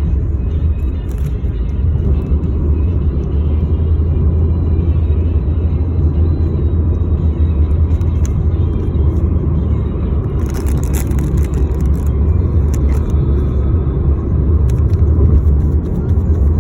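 Steady low rumble with scattered clicks and a brief rustling patch about two-thirds of the way through.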